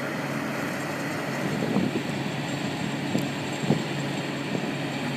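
Crane's engine running steadily while the machine works, with a few faint knocks from the equipment.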